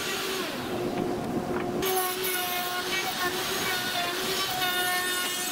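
Porter-Cable plunge router running with a steady high whine as its bit cuts a circular groove in plywood, with the rough hiss of the cut over it. The sound changes abruptly about two seconds in.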